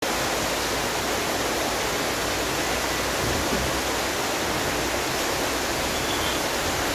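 Steady rain falling, an even hiss without pauses.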